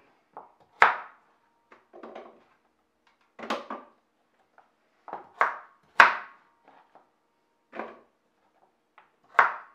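Kitchen knife chopping carrots on a cutting board: irregular sharp knocks of the blade hitting the board, some single and some in quick pairs, with short pauses between.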